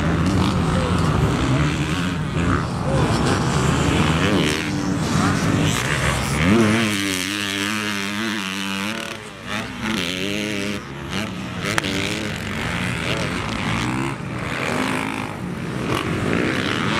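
Motocross dirt bike engines revving up and down as riders work the throttle around the track. One bike is loudest and closest from about six to ten seconds in, its pitch rising and falling repeatedly.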